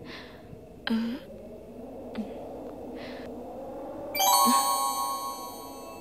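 A few soft clinks of cutlery on a plate over a low, slowly rising film-score drone. About four seconds in, a bright bell-like chord strikes and rings on, slowly fading: a suspense sting.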